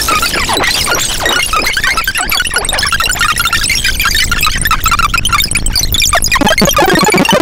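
Make Noise Shared System modular synthesizer playing a busy, chaotic patch: a stream of quick pitch-swooping chirps and scattered high blips. Near the end it settles into a steady held tone under continuing fast blips.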